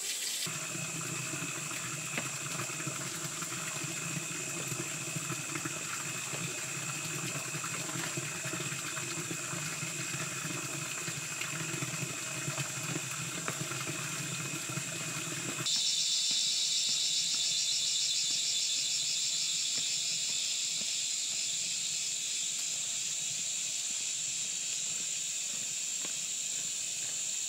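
Steady running-water noise with a few steady tones over it. About sixteen seconds in it cuts to insects chirring in a high, fast-pulsing buzz.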